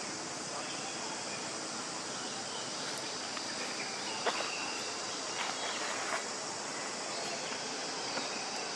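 Steady high insect drone in a forest, with a few short sharp sounds a little after the middle.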